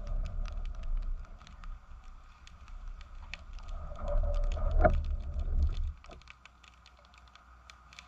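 Small fire of dry twigs and branches crackling, with many irregular sharp pops as it catches. A low rumble runs under it and stops about six seconds in.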